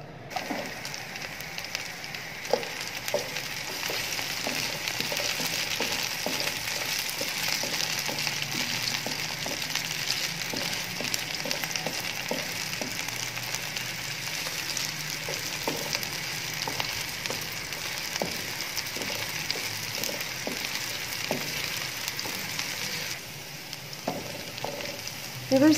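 Chopped onion, garlic and ginger sizzling steadily in hot oil in a nonstick wok over medium flame, frying until soft and translucent. A wooden spoon stirs them with light scraping ticks. The sizzle eases a little near the end.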